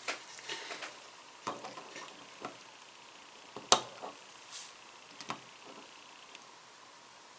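Small metal ratchet parts clicking and tapping irregularly as they are handled and fitted during reassembly, with one sharp click in the middle louder than the rest.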